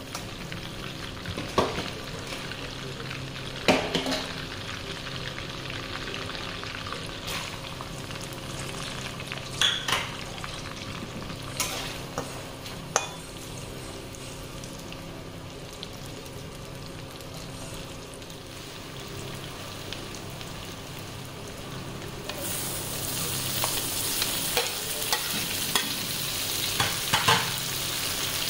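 Oil sizzling in a steel kadai as fried chicken pieces are scooped out and sliced onions, then tomatoes, are stirred in, with the metal spoon knocking and scraping against the pan now and then. The sizzle gets louder and brighter about three-quarters of the way through.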